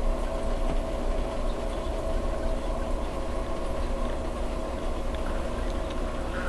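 Steady hum and water noise from a reef aquarium's pumps and circulating water, with a few constant tones in the hum and a low rumble underneath.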